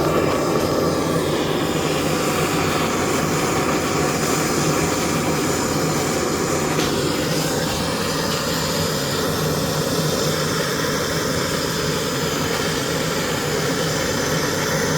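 Gas torch flame burning steadily with an even rushing sound while melting gold.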